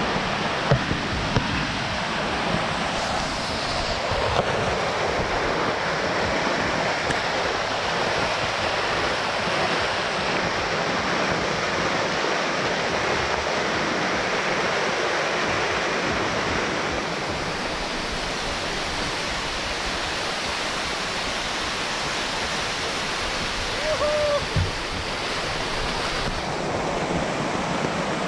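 White water rushing over a rocky stepped waterfall, heard from right in the flow: a loud, steady rush with no breaks.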